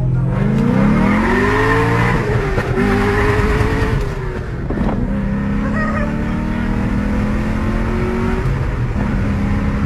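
2005 Cadillac CTS-V's LS6 V8 under hard acceleration, its note climbing steeply over the first two seconds. About four and a half seconds in the pitch drops at an upshift, and the engine then keeps pulling in the next gear with a slowly rising note.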